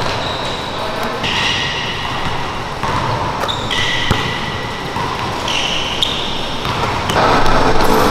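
Basketball gym sounds: a ball bouncing and sneakers squeaking on the hardwood court, echoing in a large hall; the sound gets louder about seven seconds in.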